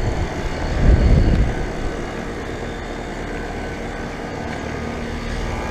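2008 Comfortmaker 4-ton central air conditioner condensing unit running: steady noise of its fan and compressor, with a brief louder low rumble about a second in.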